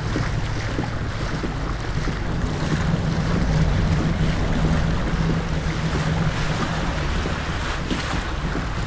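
Water rushing and splashing along the hull of a pedal-driven fishing kayak moving at speed, with wind buffeting the microphone.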